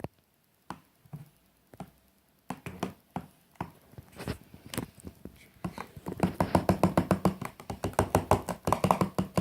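Slime glue and shaving foam mixture being mixed, with sticky wet clicks and squelches, sparse at first and then fast and continuous from about six seconds in.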